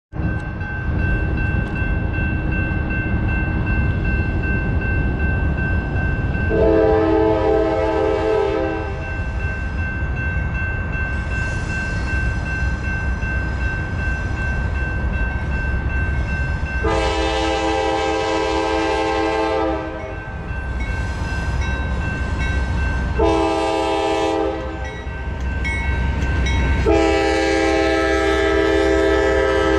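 Norfolk Southern freight locomotive's air horn sounding the grade-crossing signal as the train approaches: two long blasts, a short one, then a long one still going at the end. A steady low rumble from the approaching train runs underneath.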